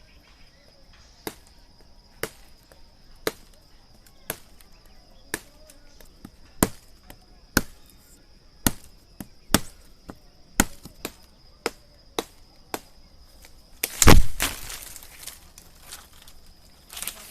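Knife blade chopping at wood: sharp single chops about once a second, coming a little faster midway, then a louder, longer crash about fourteen seconds in. A steady high insect trill runs underneath.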